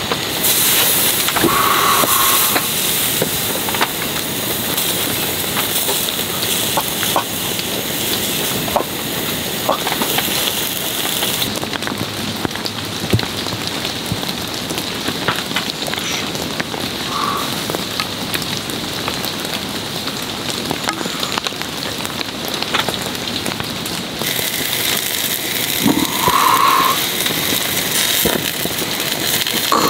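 Chicken and leek yakitori skewers sizzling and crackling on a small tabletop grill, over a steady hiss of rain. The hiss shifts in level about eleven seconds in and again about twenty-four seconds in.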